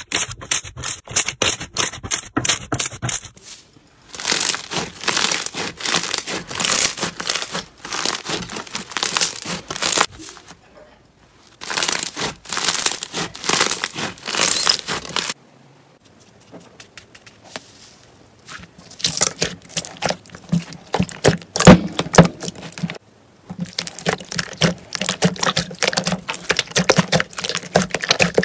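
Hands squeezing, pressing and kneading slime: dense runs of sticky popping and crackling clicks, in several stretches separated by short pauses.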